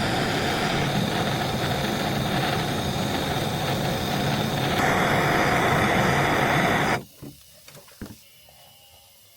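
Plumber's soldering torch flame burning with a steady noise, then cut off suddenly about seven seconds in, leaving only a few faint knocks.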